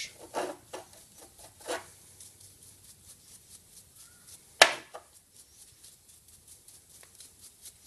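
A dry brush scrubbing a small metal wedge from a brake lathe's cutting head: a few harder strokes in the first two seconds, then lighter, quick brushing. A single sharp knock about halfway through.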